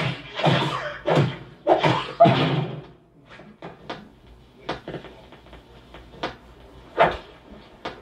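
Animated-film sound effects of a dinner-table food fight: a quick run of loud hits and swishes over the first few seconds, then scattered sharp taps and clicks about a dinner table.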